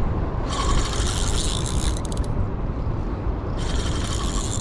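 Spinning reel cranked in two spells under the load of a large, hard-pulling hooked fish, giving a mechanical whirring and clicking. Heavy wind rumbles on the microphone throughout.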